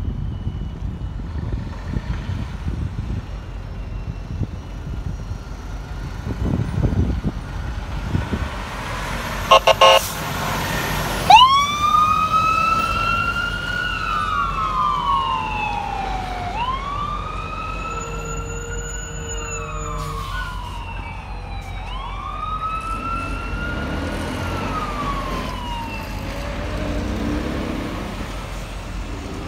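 Fire engine's diesel engine running as it pulls out, then two short, loud horn blasts about ten seconds in. The siren then starts wailing, rising quickly and falling slowly three times before fading near the end.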